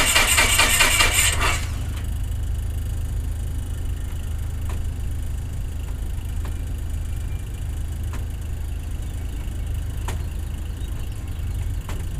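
Beechcraft Musketeer's engine cranking on its starter with an even, rhythmic chug. It turns over without catching and stops about a second and a half in, which the mechanic takes for no fuel reaching the engine. A steady low rumble and a few faint clicks follow.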